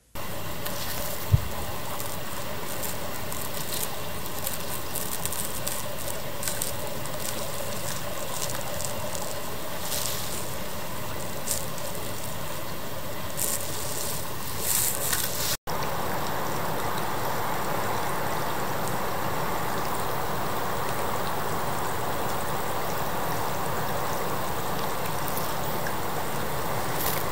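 Creek water running steadily, with a brief low thump about a second in. About halfway through the sound drops out for an instant and comes back louder and fuller.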